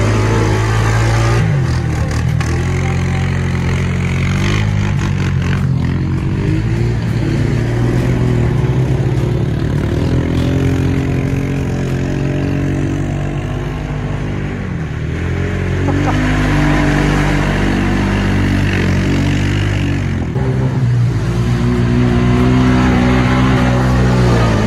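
Honda 520 ATV's single-cylinder engine revving up and down under load as the quad spins through a mud hole, its tires churning and throwing mud and water.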